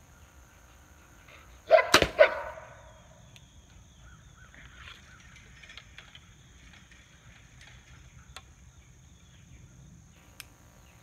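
A shot from a 2017 Elite Tempo compound bow about two seconds in: a sharp crack as the string is released, with a brief ringing after it.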